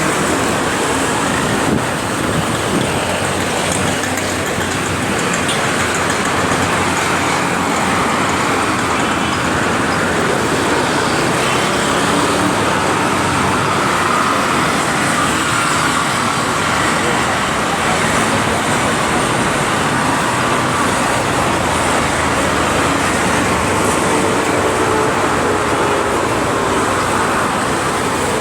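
Steady city street traffic noise, road vehicles running and passing in a continuous wash of sound, picked up on a phone's built-in microphone.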